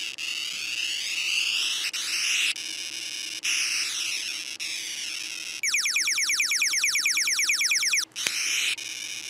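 Tiger Electronics Light and Thunder Captain Planet action figure playing its electronic power sound effects through its small built-in speaker. It runs through a string of rising and falling synthesized sweeps, and a little past halfway plays a rapid run of short falling zaps before the sweeps return.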